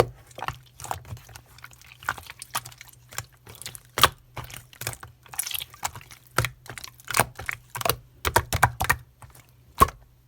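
Slime being pressed and worked by hand, giving irregular sharp clicks and pops, one or two loud ones a second among smaller ones.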